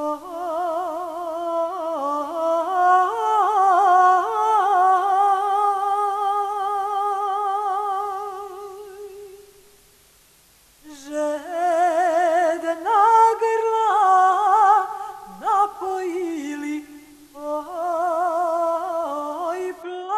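A solo voice singing a slow melody with heavy vibrato and long held notes. It fades away about halfway through, pauses briefly, then starts a new phrase.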